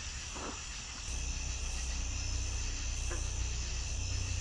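Steady chorus of night insects, crickets among them, a constant high shrilling. A low rumble joins about a second in.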